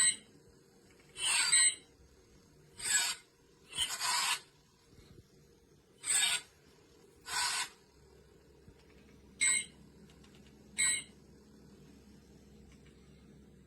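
A toy lightsaber's small speaker plays its swing sound effect in short rasping bursts, about nine of them, each under half a second and a second or two apart, as the saber is swung.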